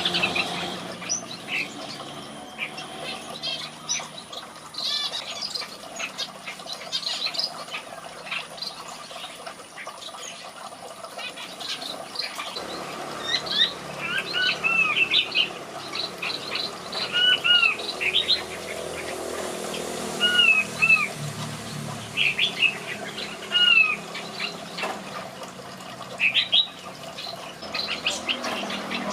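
Birds chirping with many short calls. From about halfway through, a red-whiskered bulbul sings short, arched whistled phrases over and over.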